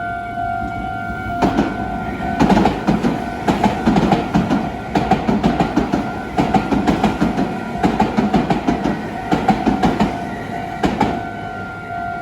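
Railroad crossing warning bell ringing its repeating electronic clang while a train passes over the crossing, wheels clacking over the rail joints from about a second and a half in until about eleven seconds. Near the end the bell is heard on its own again.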